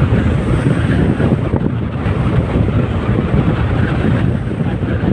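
Strong wind buffeting the microphone, a loud rumbling rush, with choppy lake waves beneath it.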